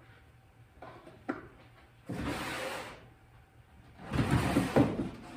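Cedar picket jack-o'-lantern boxes being handled on a wooden workbench: two sliding scrapes of wood on wood, the second one louder, after a light click about a second in.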